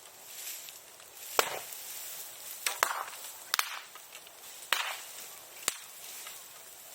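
Bonfire burning old sericulture tools, crackling over a steady hiss, with five sharp pops about a second apart, each trailed by a brief hiss.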